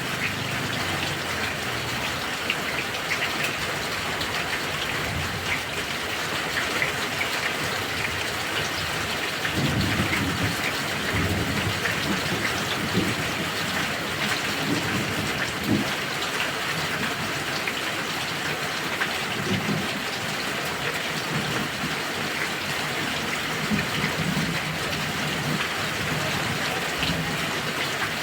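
Heavy rain falling steadily in a thunderstorm, with low rolls of thunder rumbling in and out, strongest from about ten to sixteen seconds in.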